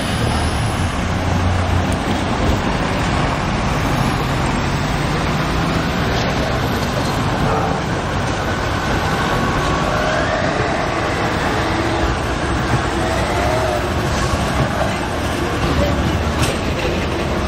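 Turin 6000-series (Alstom Cityway) low-floor articulated tram running slowly past on its street rails through a junction. Steady city traffic noise lies under it.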